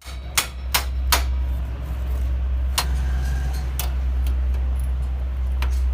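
Honda CD70 motorcycle brake pedal clicking sharply about six times as it is worked, three in quick succession and then singly, over a steady low hum. This is the pedal noise problem, put down to the pedal and its pivot pin.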